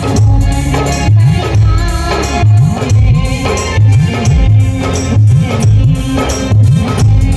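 Loud band music from a truck-mounted DJ sound system: a heavy bass beat lands about every two-thirds of a second, with sliding bass notes between beats and jingling percussion on top.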